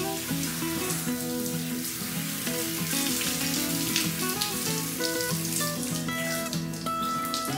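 Handheld shower spraying a steady hiss of water onto a boy's head and hair, with background music of held, changing notes.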